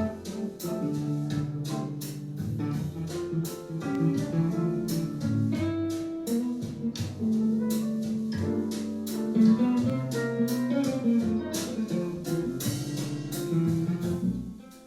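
Guitar music with plucked notes played back through a Bose Smart Soundbar 700, dipping in level near the end.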